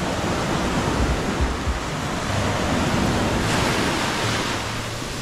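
Surf breaking and washing up over the sand in the shallows, a steady rushing wash of water, with wind rumbling on the microphone.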